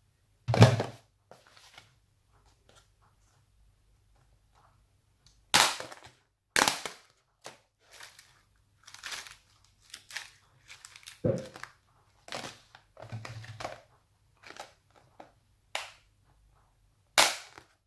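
Clear plastic tub of plastic pearl beads being handled and rummaged through: a string of separate sharp plastic clacks and short rattling, crinkly rustles, the loudest near the start and around five to six seconds in.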